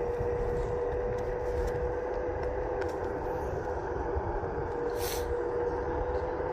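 Onewheel self-balancing electric board's hub motor whining with one steady tone while cruising, over a low rumble from its tyre on asphalt. A short hiss about five seconds in.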